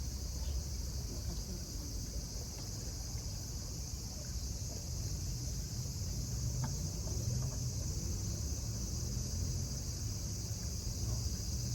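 Steady high-pitched insect chirring, with a low rumble underneath.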